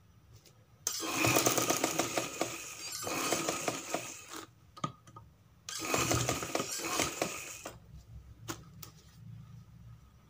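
Sewing machine stitching fabric in three runs of a second or two each, a rapid even patter of needle strokes, followed by a few light clicks near the end.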